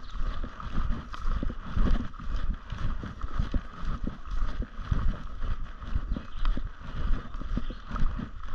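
Steps crunching on a gravel road at a steady walking pace, with low thumps under each step.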